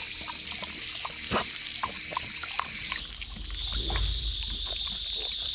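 American Pit Bull Terrier lapping water from a drinking-fountain jet, with many short irregular lapping clicks over the steady hiss of the water splashing onto a metal grate.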